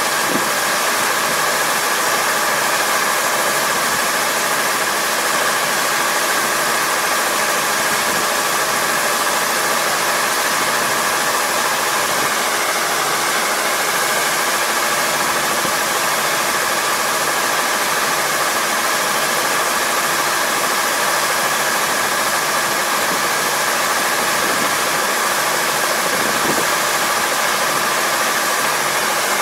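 Combine harvester running steadily: a constant loud engine and machinery drone with a steady whine over it.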